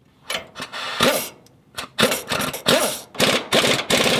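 Snap-on cordless power tool spinning in about seven short bursts, its motor pitch rising and falling with each trigger pull as bolts are run in on a steering box brace.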